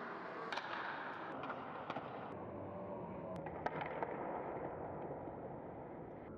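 Ice hockey rink sounds during play: a low, steady haze of arena crowd noise with scattered sharp clacks, typical of sticks and puck on the ice.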